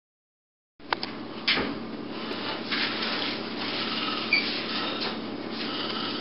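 Silence, then steady room noise cuts in about a second in with a sharp click, a second click half a second later, and a few fainter knocks over a steady hiss and low hum.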